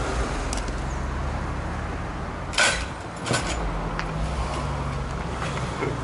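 A car engine idling steadily, with two short, sharp noises about halfway through.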